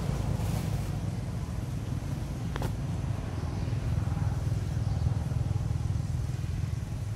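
Steady low engine rumble, like a motor vehicle running, with one short sharp click about two and a half seconds in.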